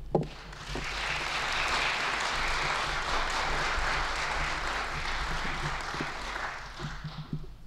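A short knock, then an audience applauding for several seconds, welcoming a speaker after his introduction; the applause dies away near the end.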